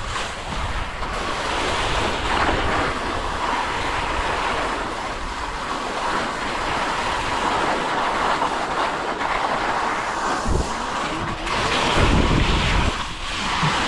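Wind buffeting the microphone over a steady rushing hiss, with stronger gusts near the end.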